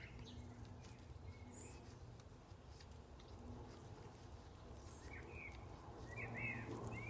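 Faint garden background with small birds chirping, the chirps gathering in the second half, and a few light clicks.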